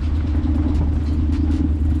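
Jeep running along a dirt off-road trail: a steady engine drone, with scattered short rattles and knocks.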